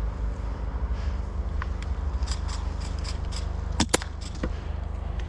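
Scattered sharp snaps of airsoft guns firing, with one louder crack about four seconds in, over a steady low rumble of wind and movement on the microphone.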